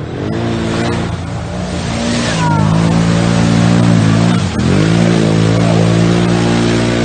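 ATV engine revving hard as the quad churns through deep mud. The revs climb over the first couple of seconds and hold high, dip sharply about four and a half seconds in, then pick straight back up.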